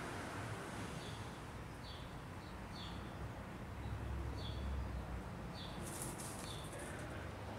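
A small bird chirping, short slightly falling chirps about once a second, over a low outdoor rumble that swells around the middle. About six seconds in, a brief rustle of dry leaf litter.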